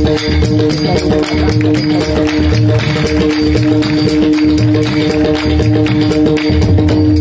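Pakhawaj played in a quick, even rhythm: deep bass strokes about twice a second under faster crisp strokes, over a steady held accompanying note. The pattern imitates the light, brisk gait of a young milkmaid.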